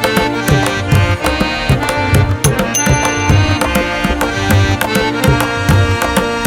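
Background music: a steady hand-drum rhythm with deep thumps under held melodic notes.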